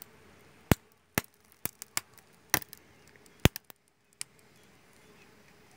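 A clear plastic sheet crackling and clicking as it is handled and peeled back from the opening of a wooden stingless-bee hive box: about nine sharp, irregular cracks within a few seconds, then quiet.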